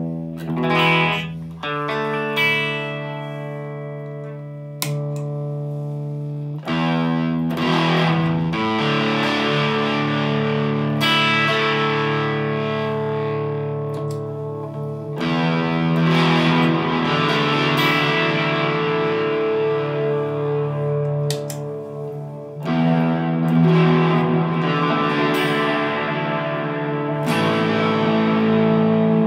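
Telecaster electric guitar played through a Dr Z Cure amp and a chain of effects pedals (3PC NARB, Cooper FX Generation Loss, EQD Avalanche Run). Slightly distorted chords are struck every few seconds and left to ring on into one another in long washes.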